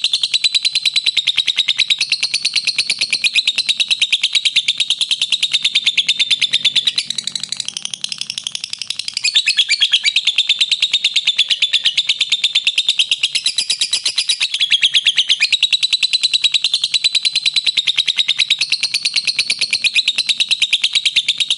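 Pet lovebirds chirping in a rapid, continuous stream of high-pitched chirps, easing off slightly for a couple of seconds partway through.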